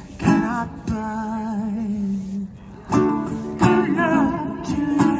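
Live acoustic guitar and voice: the guitar strums separate chords while a singer holds long notes with a wavering vibrato.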